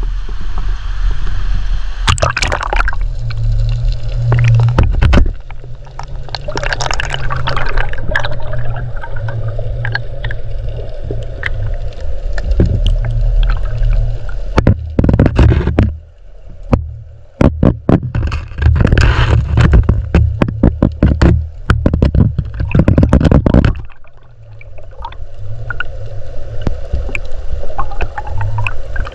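River current heard from underwater: a loud low rumble of rushing water with gurgling and scattered sharp knocks, easing off briefly twice.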